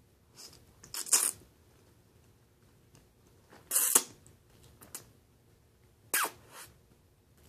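A person slurping spaghetti off a fork: three short, hissy slurps about two and a half seconds apart, with a few small mouth clicks between them.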